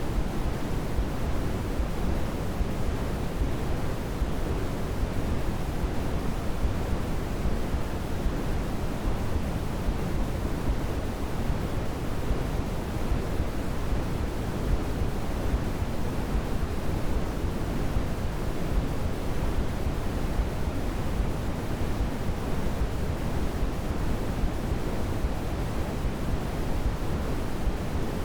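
Steady synthetic pink-style noise, an even hiss heaviest in the low end with no change or events: a continuous baby-sleep white-noise track.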